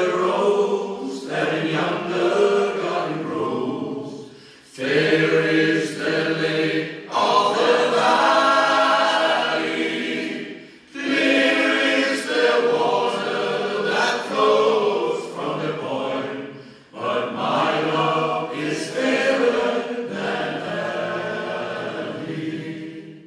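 All-male shanty choir singing together in long phrases, with brief breaks between them.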